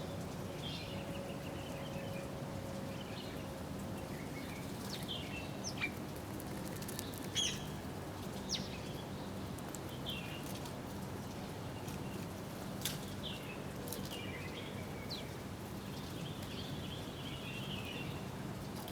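Small birds chirping in short scattered calls and trills, with a few sharp clicks among them over a steady low hum.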